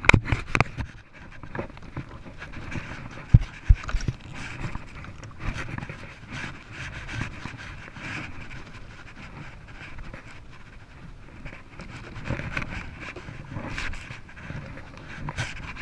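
A man breathing hard in heavy, repeated breaths while holding a landed sailfish alongside a kayak, with a couple of sharp knocks about three and a half seconds in.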